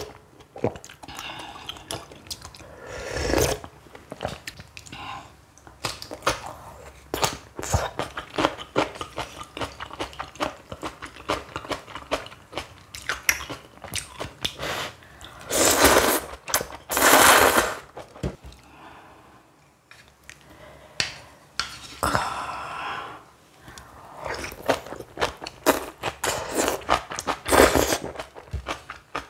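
Close-miked eating sounds of a person chewing and crunching through noodle soup and kimchi, with many small wet clicks. There are louder noisy bursts a few seconds in and twice around the middle.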